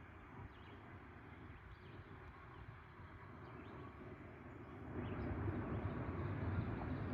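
Faint, steady rumble of a distant loaded coal train rolling through the valley below, growing louder about five seconds in.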